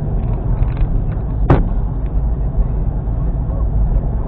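A car driving on a country road, heard from inside the car: a steady low rumble of tyres and engine. About a second and a half in there is a single sharp click.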